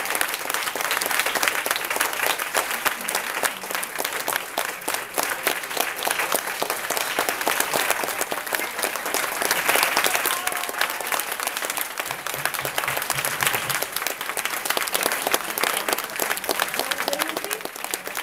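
Audience applauding: many hands clapping together, a dense, steady ovation.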